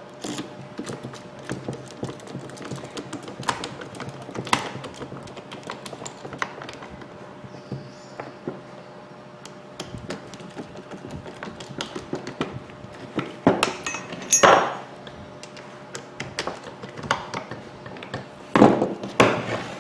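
Screwdriver clicking in the screws of a Makita hammer drill's aluminium gear housing, with scattered knocks as the drill body is shifted and turned on the wooden workbench. The loudest knocks come in two clusters, about two-thirds of the way through and near the end.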